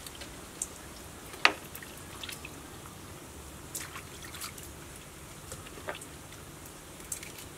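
Water dripping and splashing in a steel bowl as leafy greens are rinsed by hand, in a scatter of small separate drips and splashes. The sharpest comes about a second and a half in.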